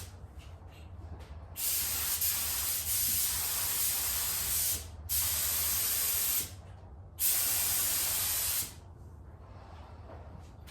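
Clear coat being sprayed onto a truck body in three hissing bursts: a long one of about three seconds, then two shorter ones of about a second and a half. A steady low hum runs underneath.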